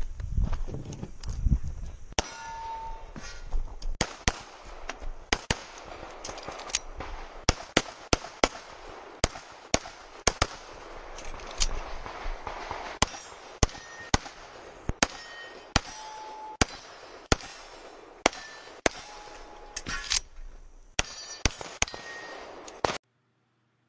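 Semi-auto pistol fire from a Sig Sauer 1911 MAX in .40 S&W: fast strings of shots with short pauses for movement and two reloads, starting about two seconds in and cutting off near the end. Some shots are followed by a brief ring of steel targets being hit.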